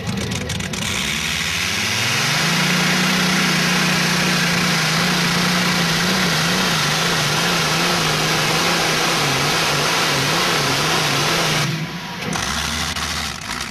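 Competition pulling tractor's engine running flat out under load during a pull: it builds up over the first two seconds, holds a steady high-revving note whose pitch wavers, then drops off suddenly near the end as the throttle is closed, leaving a lower rumble.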